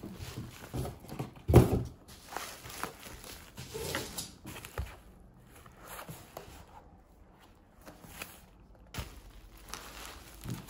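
Everyday handling sounds: scattered soft knocks and rustles, with one louder thump about a second and a half in.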